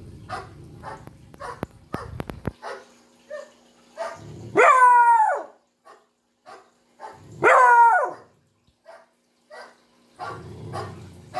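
A hound puppy gives two drawn-out howls, each about a second long and rising then falling in pitch, about three seconds apart.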